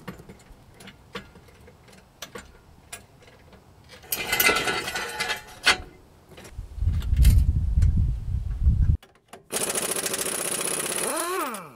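Clicks and knocks of work under a truck, a loud low rumble about seven seconds in, then an air impact wrench rattling on a rear-wheel lug nut for about two seconds near the end, its pitch dipping and rising before it stops.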